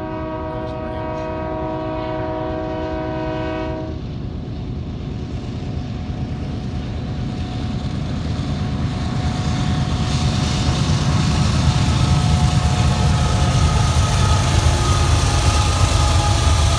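A diesel-electric locomotive's horn sounds one long chord that stops about four seconds in. Then the GE AC4400CW (rebuilt as a C44ACCTE) locomotive's heavy engine rumble grows steadily louder as it approaches, sounding as if it is working hard under load.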